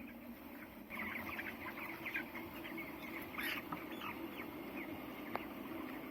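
A flock of young broiler chickens, about 19 days old, peeping in many short high calls that swell about a second in, over a steady low hum.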